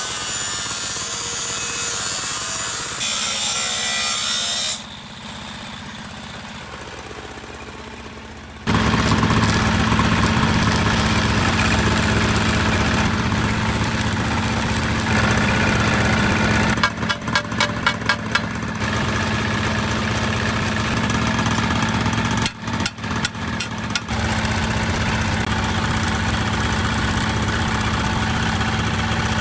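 Rasping, filing-like tool work for a few seconds, then after a quieter spell an engine running steadily from about nine seconds in, with two brief choppy breaks.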